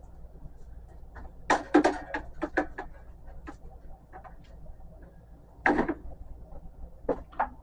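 Romex cable being worked by hand, its outer plastic sheath pulled away from the copper wires: clusters of sharp scraping clicks and rustles, a busy group about a second and a half in and shorter ones near six and seven seconds.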